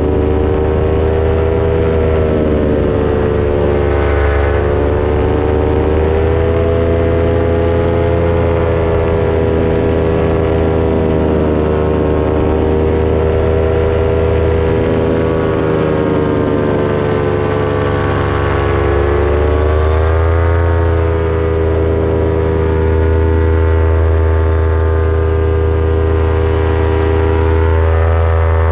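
Paramotor's two-stroke engine and propeller running steadily in flight, its droning note slowly rising and falling as the power changes.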